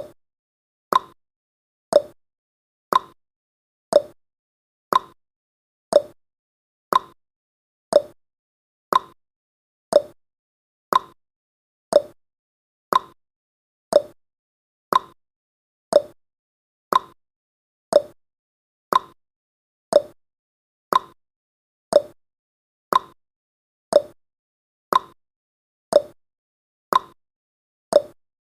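Countdown timer's clock-tick sound effect: one short tick every second, alternating between a higher and a lower tick like a tick-tock.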